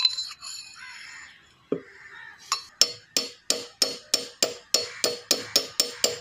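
Hammer tapping a socket used as a seal driver to drive a new oil seal into a power-steering rack tube: a quick, even run of metallic strikes about four a second, each with a short ring. The run starts after a single knock at about a third of the way in.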